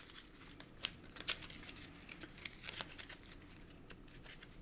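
A deck of paper board-game cards being shuffled and squared by hand: a faint, irregular run of light papery clicks and flicks.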